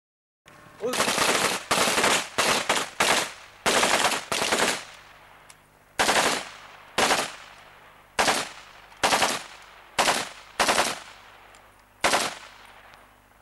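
Rifle fire: a run of rapid bursts in the first few seconds, then single reports about a second apart, each trailing off in an echo.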